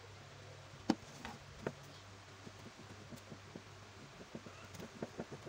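Light clicks and taps from hands working glued rubber sandal-sole pieces and a plastic glue bottle on a workbench: a few sharper taps about a second in, then a run of small ticks, over a low steady hum.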